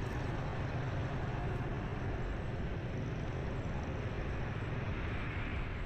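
Steady road noise heard from a moving motorbike in city traffic: a low, even rumble of engine, tyres and passing wind.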